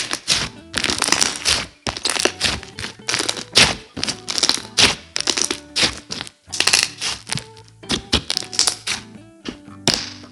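Hands squishing and pressing a thick, soft basic slime: a fast, irregular run of wet crackles and pops as air bubbles in the slime burst. Background music plays underneath.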